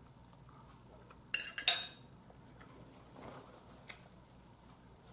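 Metal fork clinking against a ceramic bowl: two quick, sharp clinks with a short ring about a second and a half in, then a faint rustle of a paper napkin.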